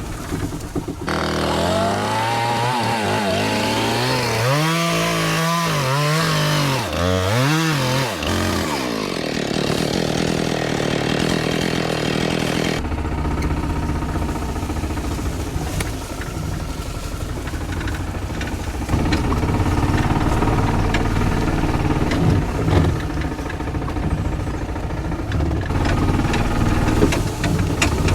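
Small petrol engine revved up and down several times in quick succession, then running on steadily under load.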